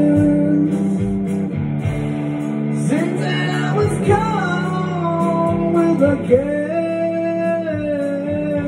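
A man singing over a strummed Epiphone Les Paul-style electric guitar in a slow rock song, the chords held and ringing; his voice slides through several notes in the middle and again about two-thirds of the way through.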